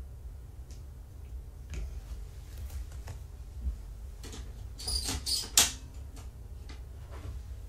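Handling noise of a plastic pet carrier and a person shifting on the floor: scattered light clicks and rustles, with a short cluster of sharper clacks about five seconds in, over a steady low room hum.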